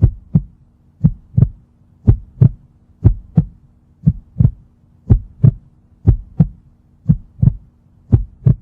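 Heartbeat sound effect: paired lub-dub thumps repeating about once a second, over a faint steady hum.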